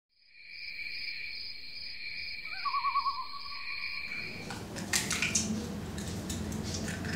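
Night-time sound effect: a steady high drone of insects with a short wavering owl trill in the middle. At about four and a half seconds it gives way to kitchen sounds, with a few sharp clinks of a metal spatula against a wok over a lit gas burner.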